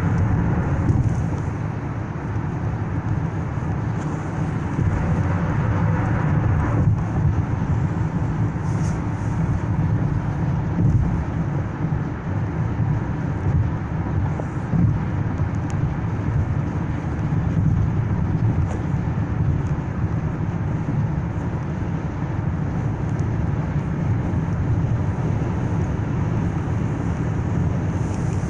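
Steady low road and engine noise inside a car's cabin while it cruises on a highway.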